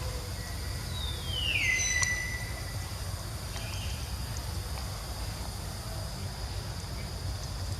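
Steady insect buzz with a low rumble underneath; about a second in, one high call slides down in pitch and holds briefly before fading.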